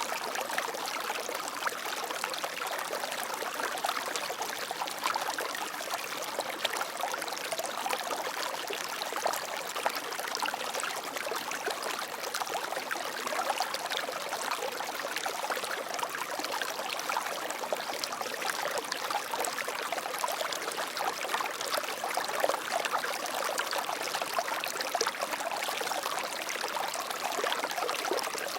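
Water flowing and splashing over rocks: a steady stream sound with fine trickling detail.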